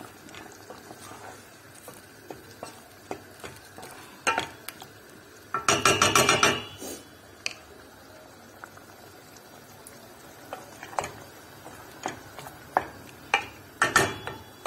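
Wooden spoon stirring a pot of keema and potatoes, with scattered knocks against the metal pot and a burst of rapid clattering about six seconds in.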